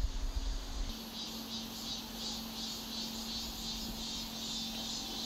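Insects chirping in a steady pulsing rhythm, about three pulses a second.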